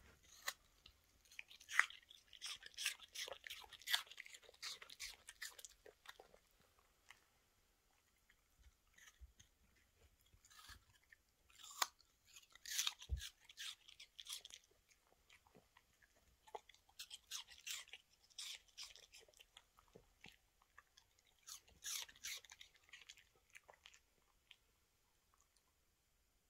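Toy terrier dog chewing a piece of raw apple: crisp, wet crunching in about four bouts of a few seconds each, with quiet pauses between.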